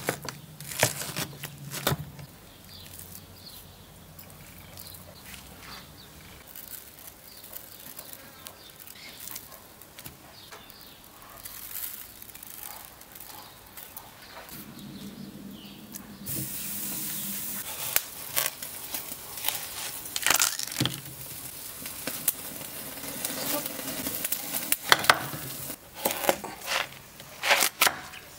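A knife slices through raw picanha on a wooden cutting board. Coarse salt hisses down onto the meat for a couple of seconds. Near the end, a large knife cuts into a whole watermelon, and the rind gives a run of sharp crackling clicks.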